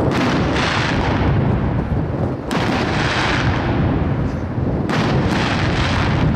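Aerial firework shells bursting: three loud bangs about two and a half seconds apart, each trailing off into a long echoing rumble.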